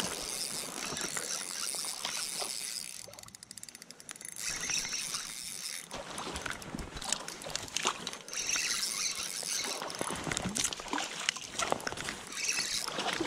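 Water splashing and sloshing as a hooked trout thrashes at the surface close to the bank, with a landing net dipped into the water.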